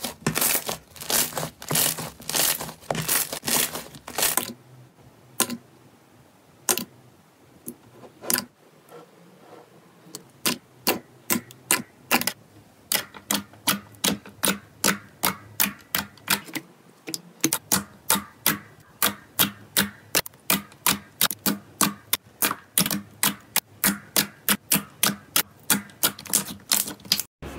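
Slime being pressed and poked, giving a run of sharp click-like pops. They come thick for the first few seconds, sparse for a while, then settle at about two to three pops a second through the second half.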